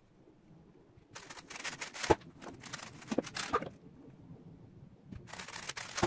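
A GAN 356 XS 3x3 speedcube being turned very fast in a timed solve: rapid, irregular plastic clicking and clacking of the layers with a few sharper knocks. Near the end comes a louder clatter as the solved cube is put down and the timer is stopped.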